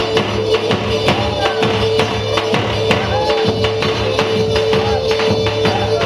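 Loud Turkish folk dance music for halay: fast, steady percussion with a tambourine-like jingle under a long held melody note.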